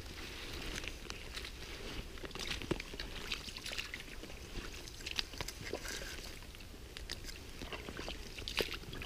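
Footsteps through wet swamp ground: boots crunching and scraping through soggy leaf litter, moss and twigs, with irregular small snaps.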